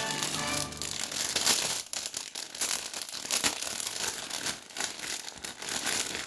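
Packaging of a toy pack being torn open and crinkled by hand, with an irregular run of crackles and rips.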